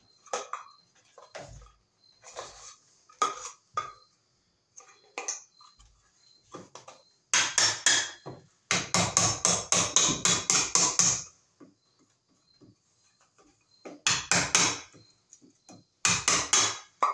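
Claw hammer knocking and prying a plastic electrical box off a wooden wall stud to remove it. Scattered taps at first, then a fast run of strikes, about four a second, around the middle, and two shorter bursts of strikes near the end.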